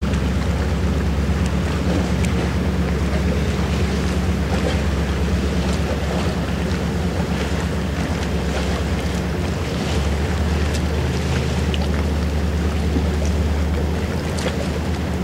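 Fire boat's engine drone carrying across the lake while its deck monitor sprays, shifting slightly about ten seconds in. Wind buffets the microphone and small waves splash at the shore.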